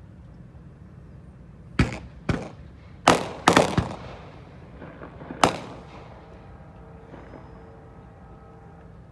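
A volley of about six sharp bangs over some four seconds, each trailing off in an echo, followed by a faint steady drone.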